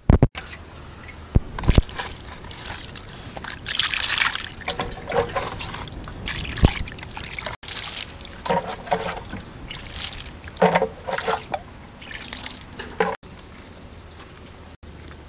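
Water trickling and splashing in several short irregular pours, as water from a clay jar is used over sliced wax gourd in a wicker basket.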